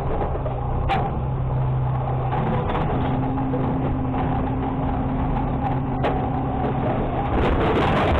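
Garbage truck's diesel engine running, stepping up to a higher, steady speed about three seconds in to drive the automated side-loader arm's hydraulics as it lifts a cart. Near the end, trash tumbles from the tipped cart into the hopper with a clatter.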